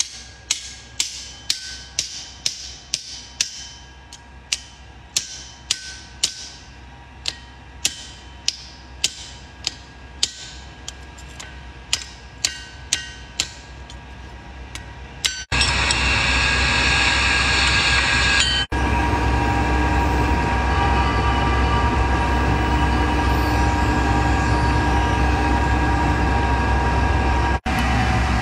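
Hand hammer striking a red-hot steel spearhead on an anvil, about two ringing blows a second with a couple of short pauses. About halfway the hammering stops and a loud steady machine noise with a faint hum takes over, from the induction heater that reheats the blade.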